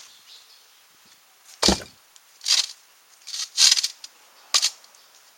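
Hard building materials being set in place for a fire pit: about five separate knocks and scrapes, the heaviest and deepest a little under two seconds in.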